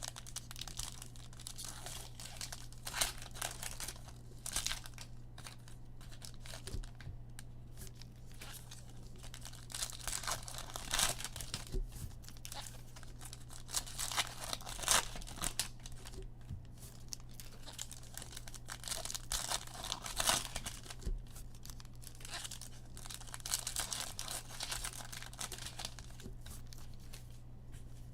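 Foil trading-card pack wrappers being torn open and crinkled by hand, in irregular bursts over a steady low electrical hum.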